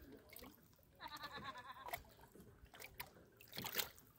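Faint distant voice: a quavering, pitched call of about a second, starting about a second in, with a few faint clicks around it.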